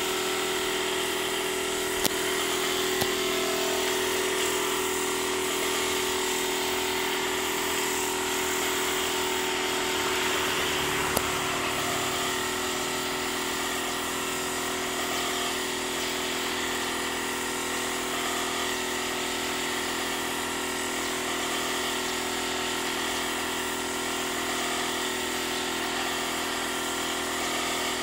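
Air compressor running steadily under the hiss of a gravity-feed paint spray gun spraying. A few sharp clicks about two, three and eleven seconds in.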